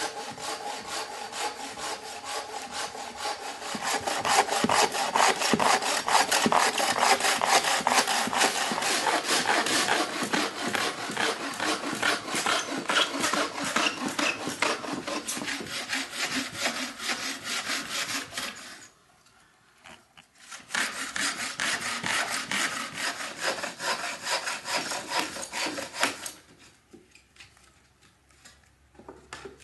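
Bow saw cutting through a log with rapid back-and-forth strokes. The sawing stops for over a second about two-thirds of the way through, starts again, and stops a few seconds before the end.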